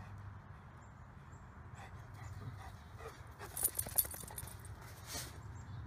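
Golden retriever moving about, its metal collar tag jingling in two short bursts about three and a half and five seconds in, over a steady low hum.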